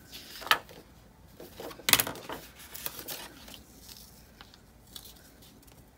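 Paper and a disc-bound planner handled on a wooden table: light rustling and small clicks, with two sharp knocks about half a second and two seconds in, the second the louder.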